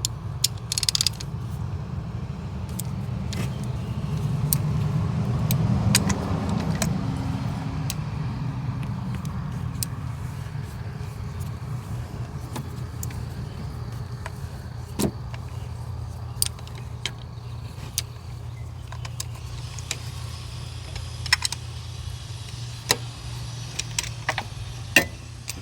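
A steady low hum that swells a few seconds in, with scattered light clicks and taps over it.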